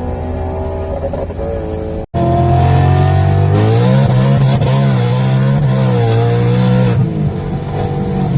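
Supercharged V8 of a BMW M3 E92 running steadily, then, after a sudden cut about two seconds in, louder and revving up and down several times before settling back to a steady note near the end.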